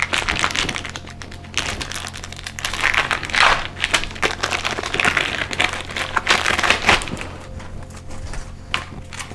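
Crinkling of a plastic wrapper as a packet of manuals is pulled open and handled, in irregular bursts.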